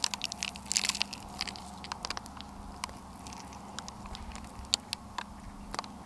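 Sesame seeds sprinkled onto marinated beef and parchment paper: a quick run of light, crisp ticks in the first second, then scattered single ticks as the last seeds fall.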